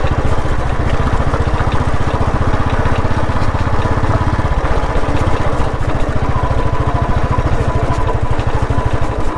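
Royal Enfield Classic 350's single-cylinder engine running steadily under way, its firing pulses giving an even beat with no revving up or down.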